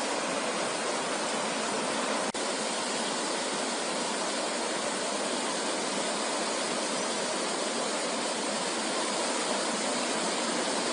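Steady rushing of turbulent floodwater, an even roar with a brief dropout about two seconds in.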